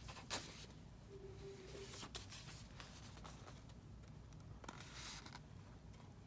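A few faint, brief paper rustles as a picture book's pages are handled and held up, over quiet room tone.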